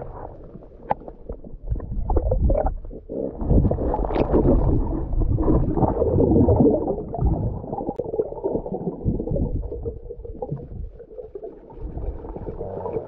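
Muffled water sloshing and gurgling, dull and irregular, the way an action camera sounds at or under the water's surface. It grows louder a few seconds in and eases off near the end, with a few small ticks.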